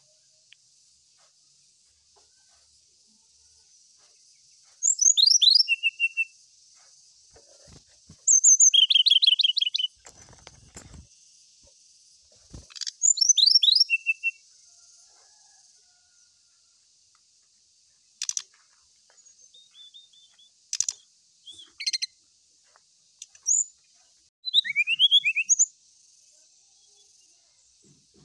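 Brown-chested jungle flycatcher singing: three short phrases a few seconds apart, each a quick run of sharply falling high whistles ending in a short lower trill. Later come scattered sharp clicking notes and one more falling phrase near the end.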